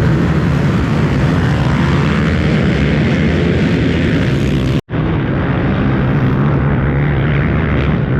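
Pack of race ATV engines revving hard together, a row launching off the start line. The sound cuts out for an instant a little before halfway, then carries on.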